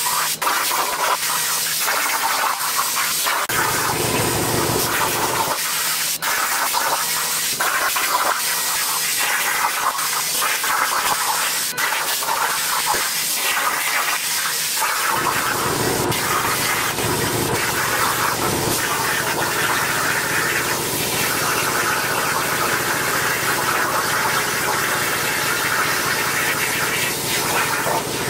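Torchmate CNC plasma cutter cutting steel plate, sped up: a continuous hiss from the plasma torch, broken by brief clicks and surges as cuts start and stop. A deeper rumble joins about halfway through.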